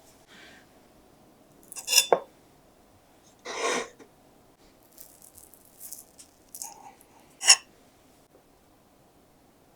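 Kitchen handling sounds: a couple of sharp clinks about two seconds in, a short rustle or scrape near four seconds, a few light taps, and one more sharp clink about seven and a half seconds in.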